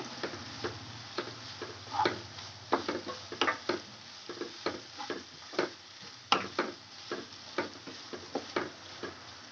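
Wooden spatula tapping and scraping against a non-stick kadai as sliced onions and green chillies are stirred, irregular clicks a few times a second over a faint steady sizzle of frying in oil.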